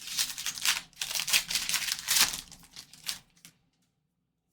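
A 2023 Topps Allen & Ginter baseball card pack's wrapper being torn open and crinkled, with the cards handled, in a run of crackling rustles that cuts off abruptly about three and a half seconds in.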